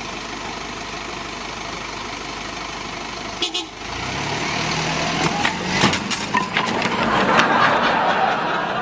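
Box truck's engine revving as it pulls away, then an upright piano falling out of the back and smashing onto the road: a run of loud wooden cracks and clattering impacts over a couple of seconds, with rattling debris after.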